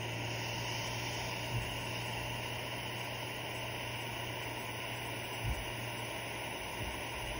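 Steady hiss of a lit butane soldering iron as it heats the solenoid pack terminals and melts solder, with a low steady hum underneath. Two faint low knocks come about a second and a half in and again past the middle.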